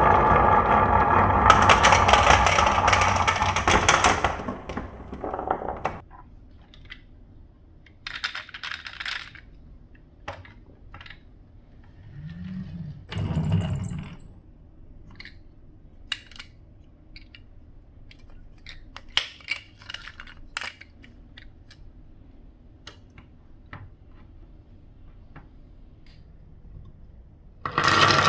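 Glass marbles running through a wooden marble run: a loud continuous rolling for the first six seconds that then stops, followed by scattered clicks and small rattles of marbles knocking and settling, with a short low rumble a little before halfway. Loud rolling starts again just before the end.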